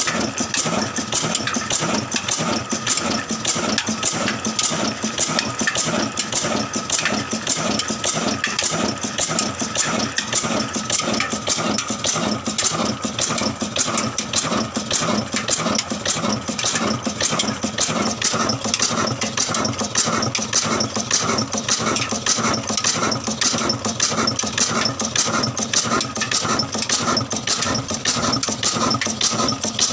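Old black horizontal diesel engine running steadily with an even, rapid beat.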